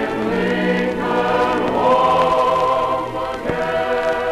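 Choir singing long held chords, moving to new chords twice, played from an old vinyl record with faint surface clicks.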